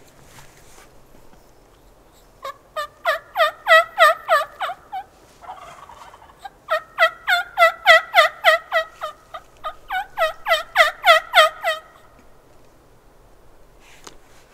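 Merriam's wild turkey yelping: two long runs of rapid, evenly spaced yelps at about five a second, the second run longer.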